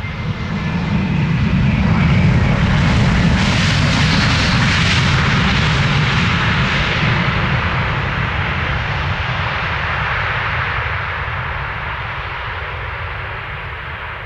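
Jet aircraft passing close by: engine noise swells over the first couple of seconds, is loudest for a few seconds, then slowly fades away.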